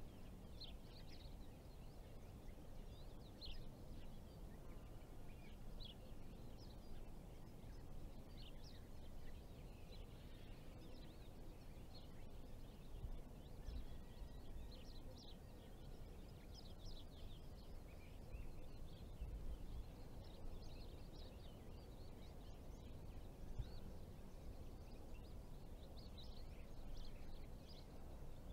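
Faint outdoor ambience: small birds chirping in short, repeated high calls over a low, steady background rumble.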